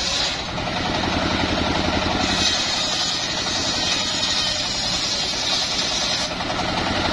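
Engine of a homemade circular saw bench running steadily and driving the large saw blade. A higher hiss rises and fades a few times over the engine.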